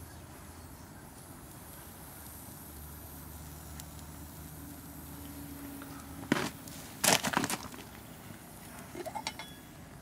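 Aluminium camping-pot lid lifted off, with a few sharp metallic clanks and rattles about six to seven and a half seconds in and lighter clinks near the end. A faint steady breeze noise runs underneath.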